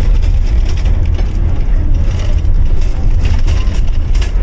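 Inside the cab of a Leyland KSRTC bus under way: a heavy low engine and road rumble, with frequent rattles and clicks from the cabin and gearbox area.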